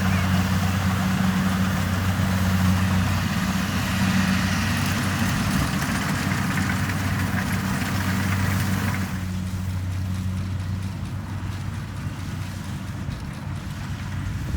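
Kubota DC70 Plus combine harvester's diesel engine running steadily with a low hum and a hiss of machinery noise over it; about nine seconds in the higher hiss falls away, leaving mostly the engine's hum.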